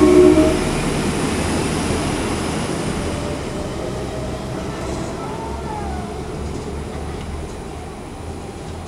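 Diesel multiple-unit train, an NIR Class 22000 intercity railcar, pulling away and fading steadily into the distance, its low engine drone dying down. A brief pitched tone sounds right at the start.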